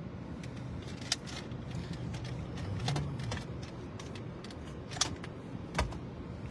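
Steady low rumble of a car's cabin, with a few sharp clicks and taps from the hand-held phone being moved, one with a dull thump near the end.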